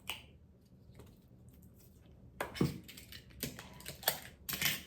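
A bottle of liquid smoke being handled over the pork: a run of sharp clicks and knocks, the loudest about two and a half seconds in, with more near the end.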